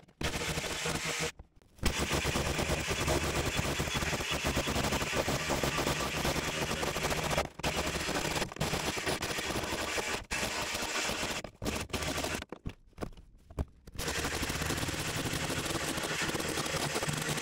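Cordless rotary hammer in chisel mode hammering rapidly, driving a homemade chisel bit to chip hardened covering off a rusty steel truck floor pan. It runs in long bursts with a few short stops and a longer pause about two-thirds of the way through.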